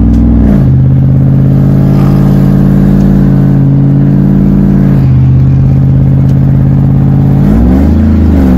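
Chevy Silverado's straight-piped, catless exhaust droning loudly inside the cab while driving. The engine note shifts pitch a couple of times, with a brief rise and fall near the end.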